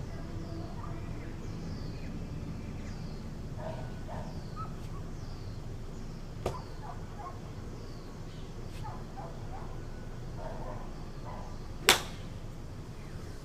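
A 7-iron striking a golf ball once, a single sharp crack near the end, with a fainter click about halfway through.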